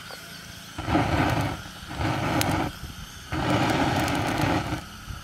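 Handheld blowtorch flame hissing in three bursts, each a second or so long, starting and stopping abruptly, as it is held to a pile of dry twigs to light a fire.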